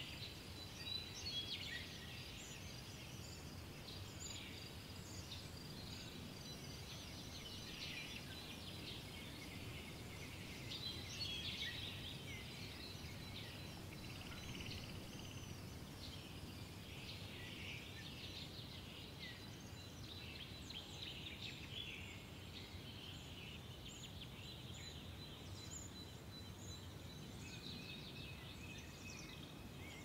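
Morning nature ambience: many small birds chirping and twittering throughout, faint, over a steady low background rumble.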